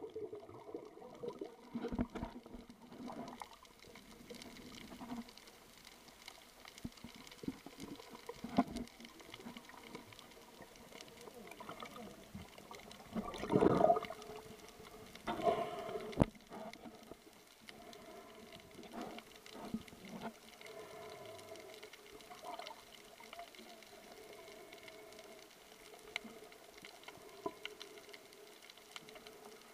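Muffled underwater water noise picked up by a submerged camera, with a faint steady hum and scattered short rushes of water. The rushes are loudest about halfway through.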